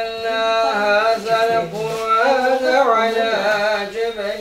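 A single voice chanting an Islamic religious recitation in long, ornamented held notes that waver and bend in pitch, without a break.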